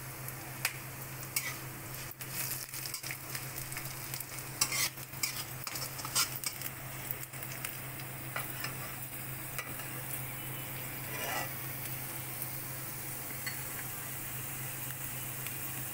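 Metal spatula stirring and scraping a tempering of dals, peanuts, curry leaves and green chillies frying in oil in a metal kadhai, over a steady sizzle. The scrapes come in clusters in the first half and thin out later.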